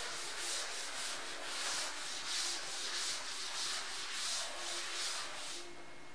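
Chalkboard duster rubbing chalk off a chalkboard in rapid back-and-forth strokes, a rhythmic dry swishing that stops shortly before the end.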